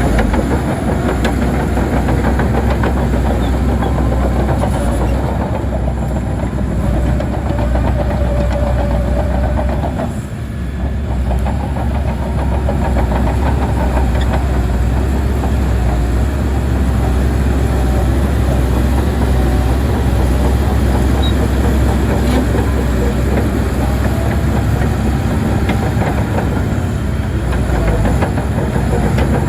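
Heavy diesel earthmoving machinery running hard, a deep steady engine rumble with a continuous rapid metallic clatter over it. The sound eases briefly about ten seconds in, then carries on.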